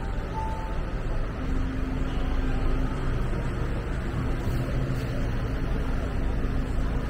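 Street traffic: a steady low rumble of vehicle engines, with a short electronic beep right at the start and a steady engine hum coming in about a second and a half in.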